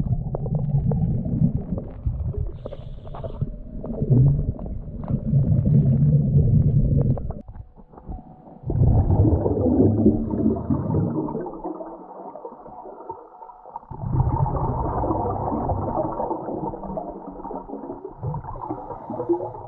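Scuba diver's exhaled bubbles gurgling and rumbling from the regulator, heard muffled underwater, in long surges with quieter gaps between them.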